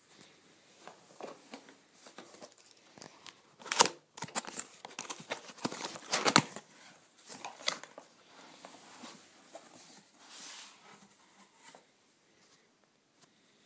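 Laptop packaging being handled and opened: irregular rustling, crinkling and sharp knocks, loudest about four and six seconds in.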